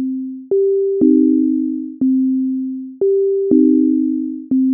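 Sonic Pi's default beep synth, pure sine-wave tones, looping a short pattern: middle C, a G one second later, then C and E-flat together as a chord half a second after that, with the cycle repeating every two and a half seconds. Each note starts with a slight click and fades away.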